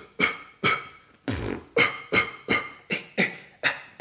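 Beatboxer's cough snare, a sudden push of air from the throat, repeated about nine times in a quick run. One stroke a little past a second in is longer and deeper than the rest.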